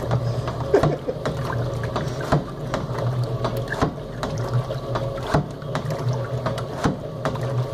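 Homemade washing machine running: a blue plastic drum turned by a salvaged washing-machine motor, with soapy water and a blanket sloshing inside. A steady low motor hum runs under irregular knocks and splashes.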